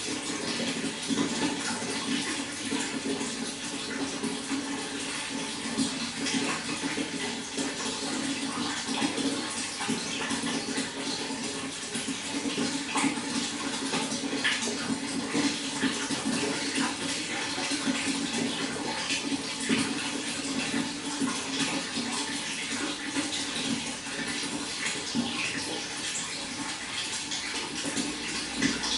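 Running water pouring and splashing steadily, a continuous trickle with small splashes throughout.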